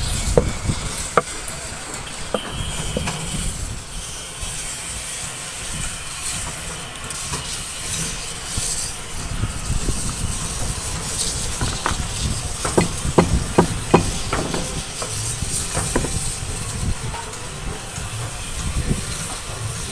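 Steady low rumble and hiss with scattered sharp knocks and taps, most of them bunched together about twelve to sixteen seconds in.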